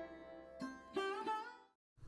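Background music: a few plucked string notes that die away, fading to silence shortly before the end.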